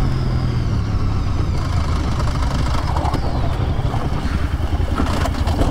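Sport motorcycle engine running steadily at cruising speed, with wind rushing over the helmet camera's microphone.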